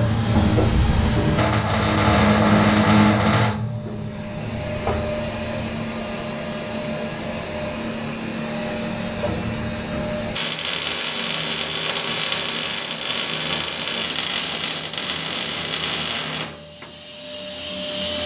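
MIG welder crackling for about three and a half seconds, then a steady machine hum. About ten seconds in, a shop vacuum's even hiss starts, and it cuts out abruptly near the end.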